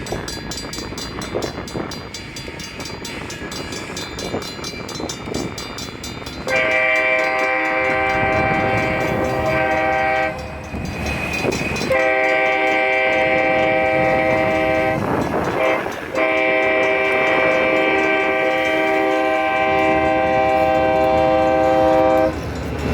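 ELS locomotive 502 approaching with a rumble, then sounding its loud multi-note air horn about six seconds in. The horn gives several long blasts with short breaks between them, the last held for about six seconds.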